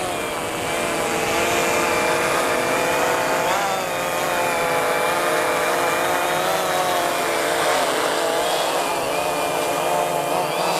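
Condor fishing drone's electric rotors buzzing as it flies back in to land, the pitch wavering and shifting a few times with the throttle.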